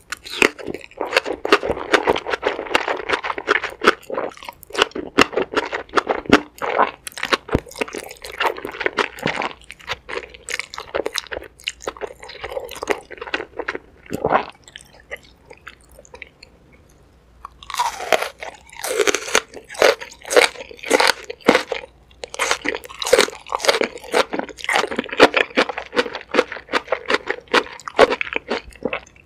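Close-miked chewing of a mouthful of black bean noodles and green onion kimchi: wet, crunchy mouth sounds with quick clicks. The chewing pauses for about three seconds just past the middle, then starts again.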